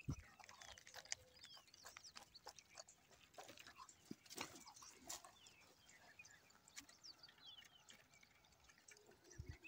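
Dogs lapping milk from a small box, heard as faint, irregular wet clicks.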